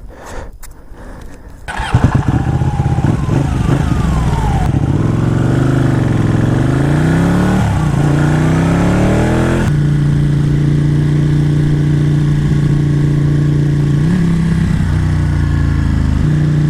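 A motorcycle engine catches about two seconds in and is revved, its pitch rising and falling. About ten seconds in it settles to a steady run, with a short blip of the throttle a few seconds later.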